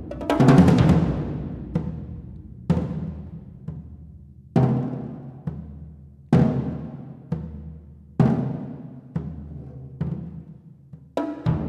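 Solo drums struck with mallets: a quick flurry of strokes at the start, then a slow pattern of single strokes, a loud one about every two seconds with lighter ones in between, each ringing out and dying away, and another flurry near the end.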